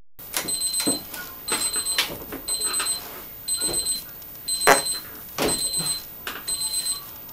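Electronic beeping like an alarm clock or timer: a group of quick high pips about once a second, with a few sharp knocks among them.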